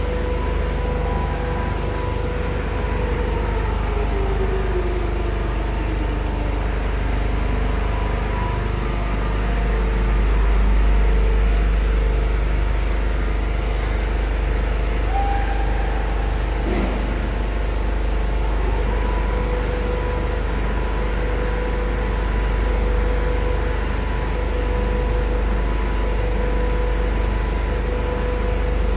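Richpeace industrial quilting and four-side sewing line running: a steady machine drone with a heavy low rumble and a constant hum, and a whine that falls in pitch a few seconds in.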